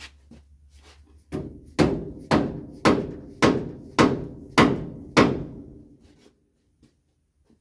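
Orange mallet striking metal under the rear of an International Scout 800, eight blows about two a second, each ringing briefly. The first blow is lighter than the rest.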